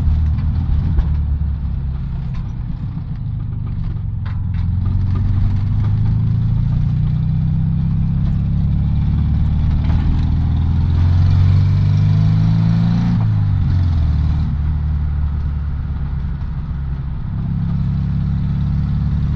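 1981 VW Beetle 1200's air-cooled flat-four engine running under way, heard from inside the cabin. The revs climb for several seconds, fall sharply about two-thirds of the way through, then pick up again near the end.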